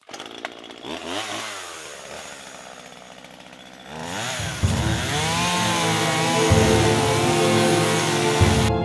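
Chainsaw engine blipped once about a second in, then running at low revs. About four seconds in it revs up to full throttle and stays loud and high, the pitch wavering as the chain bites into a small tree trunk at its base.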